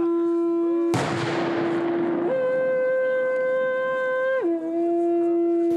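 Horagai, long wooden ceremonial horns, blown in long held notes. A low note steps up to a higher one about two seconds in and falls back to the low note near the end. A sudden burst of hiss cuts in about a second in and fades.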